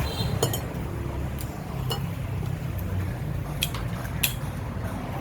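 Spoon or utensils clinking against a bowl, about half a dozen light clinks spread out irregularly, over a steady low hum.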